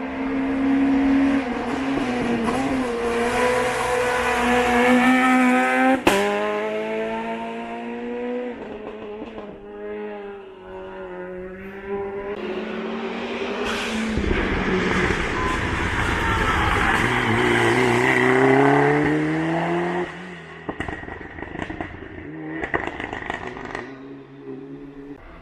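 Race car engine at full throttle on a hill climb, revving up and dropping back with each gear change, with a sharp crack about six seconds in. The engine note rises again, then cuts off about twenty seconds in, followed by a string of short cracks.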